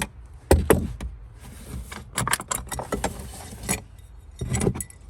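Metal clinks and clicks of a socket wrench with an extension working on a battery hold-down fastener, in quick irregular clusters, with a louder knock about half a second in and again near the end.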